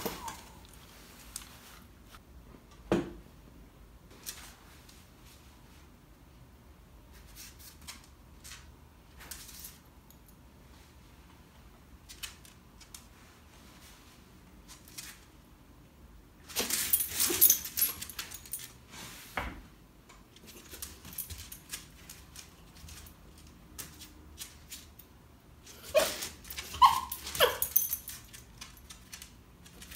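A small dachshund moving about on a wood floor: scattered light clicks and taps with a jingle of collar tags, and a louder stretch of rustling and clattering about halfway through. Near the end come a few short, high whines.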